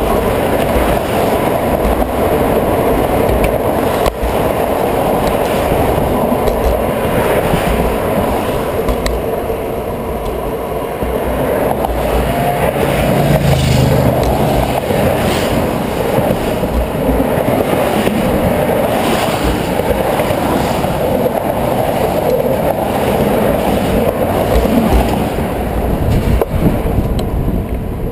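Steady rolling rumble and rattle picked up by a bicycle handlebar-mounted camera riding over a concrete sidewalk, with road traffic alongside. A low hum from a passing vehicle rises and fades about halfway through.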